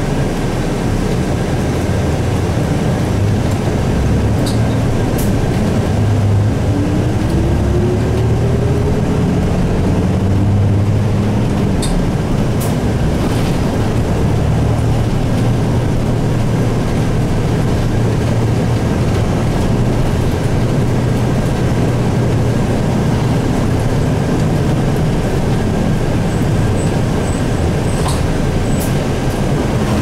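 Isuzu Erga city bus's 6HK1 inline-six diesel engine heard from inside the bus as it drives. The engine note rises for several seconds, drops back about twelve seconds in, then runs steadily under road noise, with a few light clicks.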